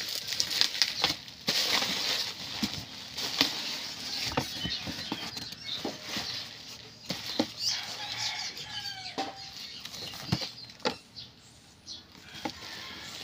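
Rustling, crinkling and knocking of packaging being handled and pulled apart, with irregular sharp clicks. Chickens cluck now and then in the background.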